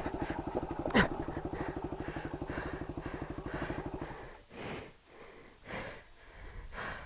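Yamaha WR250X's single-cylinder engine idling with a fast, even pulse, then cutting out about four seconds in. After that comes the rider's heavy breathing, about one breath a second, winded from a hard off-road climb.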